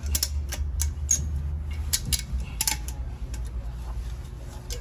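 Ratchet strap being ratcheted tight: irregular metallic clicks of the ratchet mechanism as the handle is worked, more of them in the first few seconds, over a low steady hum.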